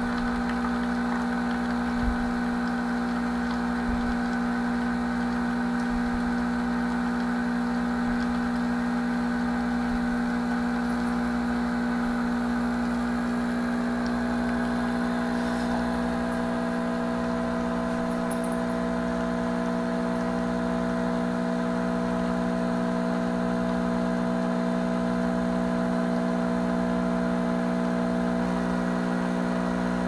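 Mcilpoog WS-203 super-automatic espresso machine's pump running with a steady hum while it brews espresso.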